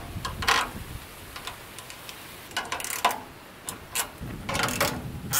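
Small metal brackets and nuts being fitted by hand onto a gas grill's steel frame: irregular light clicks and rattles, some coming in short clusters.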